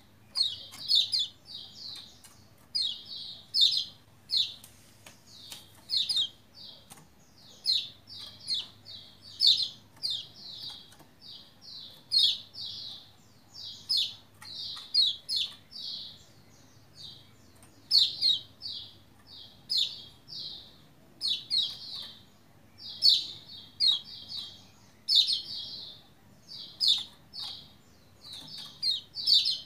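White-eye (pleci Lombok) chirping in quick runs of three to five high notes, a run every second or two, with sharp faint clicks among them.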